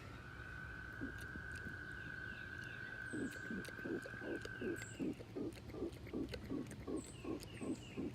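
Frogs croaking in a quick run of low, repeated calls, about three a second, starting about three seconds in. A steady high trill runs under them for the first five seconds.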